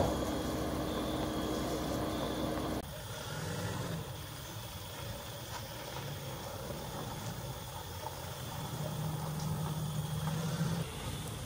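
Car engines idling: a steady low engine rumble that cuts off abruptly about three seconds in, followed by a quieter low engine hum that comes back louder near the end.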